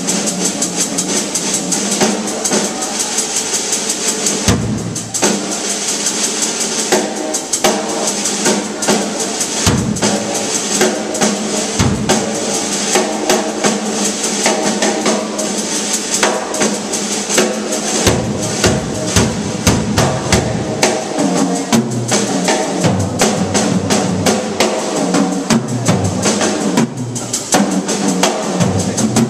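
Drum kit solo on a Yamaha kit: fast snare and tom strokes over steadily ringing cymbals, with bass drum kicks here and there that come more often in the second half.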